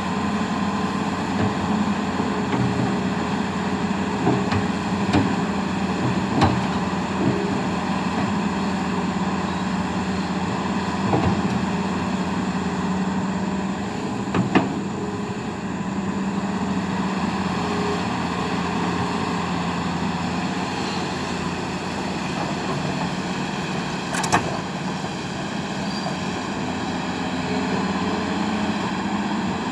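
Hitachi hydraulic excavator's diesel engine running steadily under work, with a scattering of short sharp knocks, the loudest about halfway through and again later.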